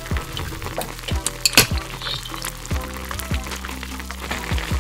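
Spicy tteokbokki sauce bubbling and crackling in a hot earthenware ttukbaegi pot, with metal tongs clinking as they lift rice cakes and noodles; the sharpest clinks come about a second and a half in. Background music with a steady beat runs underneath.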